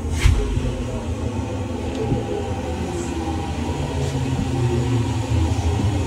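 Elevator car travelling in its shaft: a steady low rumble from the running lift, with one sharp click about a quarter second in and a few faint ticks after.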